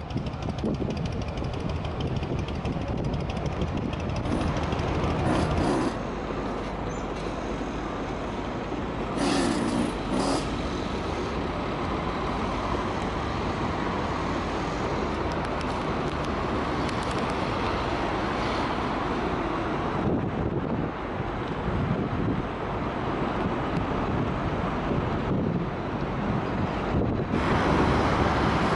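City traffic noise of buses and road vehicles, a steady rumble and hiss that changes abruptly several times, with two short hisses about nine and ten seconds in.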